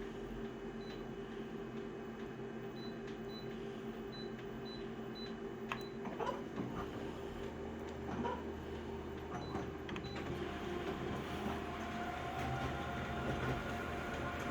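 Steady low electrical hum with a few sharp clicks scattered through the middle, and faint short high ticks in the first half.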